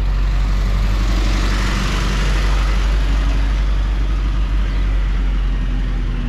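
LP gas delivery truck passing close by and pulling ahead, with a steady low engine hum. The noise of its engine and tyres swells about a second in and eases after it passes.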